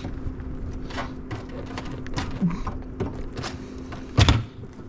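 Scattered knocks and clatter of materials being handled on a building site over a steady low hum, with one loud thud about four seconds in.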